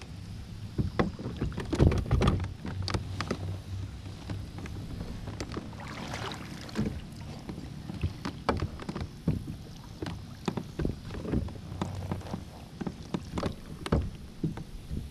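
Knocks, clicks and rattles of fishing gear being handled aboard a plastic Hobie Outback kayak, over a steady low hum.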